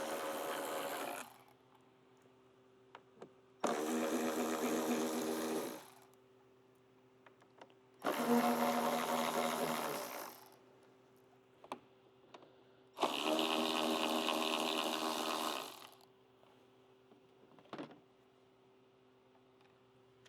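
Handheld power driver spinning in four bursts of about two to three seconds each, backing out the fairing's four speaker-pod bolts, with small clicks in between.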